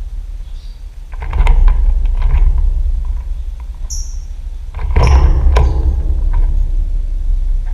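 Lovebird giving a couple of short, high, falling chirps among loud rustling noises, over a steady low hum.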